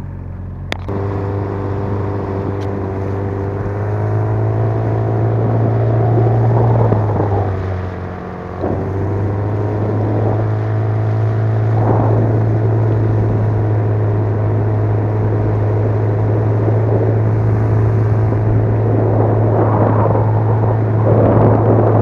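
Small outboard motor running steadily on an inflatable boat, a constant pitched drone that dips briefly about eight seconds in and then picks up again, with occasional water wash rising over it.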